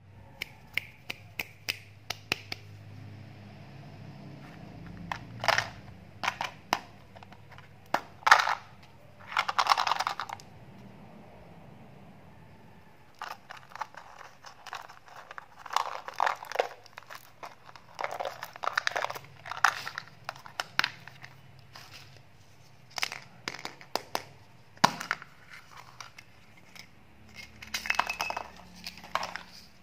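Hands handling and opening small plastic candy containers and wrappers: irregular clicks and snaps of plastic, with short bursts of crinkling and rattling of small hard candies.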